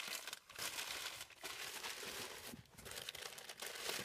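Crumpled packing paper crinkling and rustling in irregular bursts as hands dig through it in a cardboard box to unwrap a wrapped-up train car, with brief pauses between handfuls.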